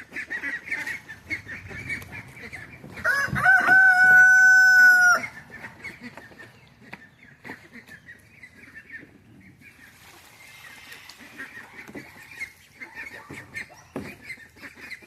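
A rooster crows once, a single held call about two seconds long that starts a few seconds in, over the soft, scattered clucking of chickens.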